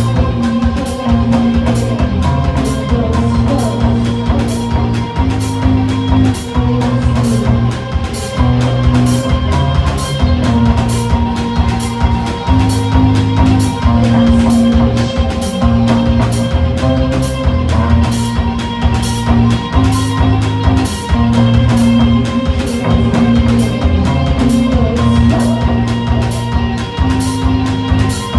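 Live rock band playing loud: electric guitars holding repeated low riffs over a drum kit beat with steady, evenly spaced cymbal hits, about two to three a second.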